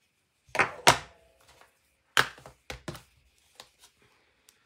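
Stamping supplies, an ink pad among them, knocked and set down on a hard tabletop: two sharp knocks close together about half a second in, another just after two seconds, then lighter taps and clicks.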